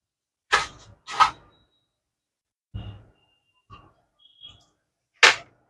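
A few short breaths or sniffs close to the microphone, the loudest just after five seconds, with faint short high beeps between them as the feature phone's navigation key is pressed to scroll the menu.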